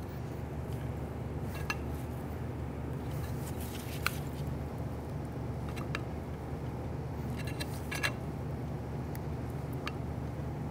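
A few sharp metallic clicks and scrapes, a few seconds apart, as a flat blade screwdriver pries against the tab on a steel engine mount bracket. A steady low hum runs underneath.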